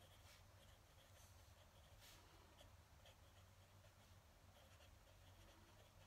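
Faint scratching of a fountain pen nib on paper during handwriting, in short irregular strokes, with a couple of slightly louder strokes, about a third of a second in and about two seconds in.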